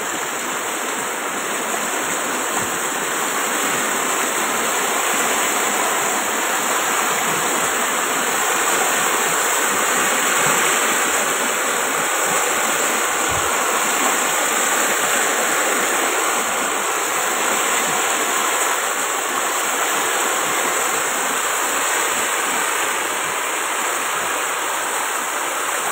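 Floodwater rushing in a steady, loud torrent across a paved road: runoff from the mountain after heavy rain, overflowing the roadway.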